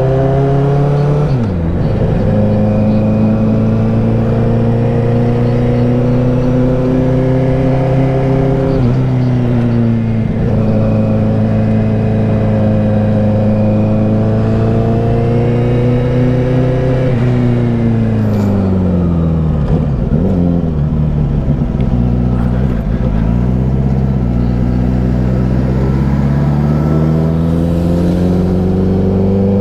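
2009 Honda CBR1000RR's inline-four engine and exhaust revving hard on the throttle. The pitch climbs, drops back briefly near the start and again about nine seconds in, falls away for a few seconds past the middle as the throttle is rolled off, then climbs again toward the end.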